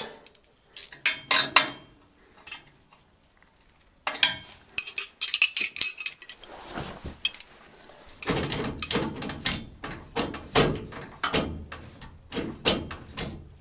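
Steel hand wrenches and bolt hardware clinking and clicking as they are handled and picked up off the floor while a limit-strap bolt is fitted. The clinks come in scattered groups, with a quiet gap about two seconds in and a denser run of clicks and knocks in the second half.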